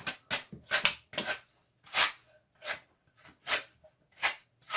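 Sanding block worked by hand over wood in short back-and-forth strokes, about one to two a second at an uneven pace.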